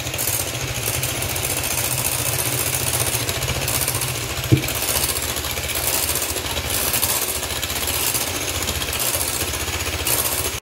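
Electric hand mixer running steadily at speed, its beaters whipping an egg, sugar and milk pancake batter in a bowl as the milk goes in. A single sharp knock comes about four and a half seconds in, and the sound cuts off suddenly at the end.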